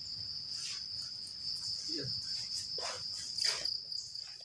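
Insects making a continuous high-pitched buzzing chorus, with a few faint short rustles.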